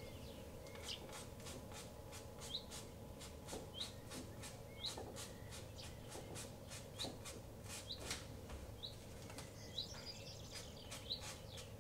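Paintbrush dabbing and flicking acrylic paint onto canvas in quick, short, faint strokes, two or three a second. A bird chirps faintly about once a second over a low steady hum.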